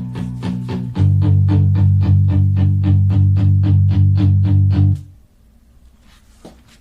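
Guitar-and-bass music playing through Wilson loudspeakers driven by Boulder 1050 mono power amplifiers, with a steady beat of about four strokes a second. About a second in, the bass comes in much louder. The music stops abruptly about five seconds in, leaving only quiet room tone.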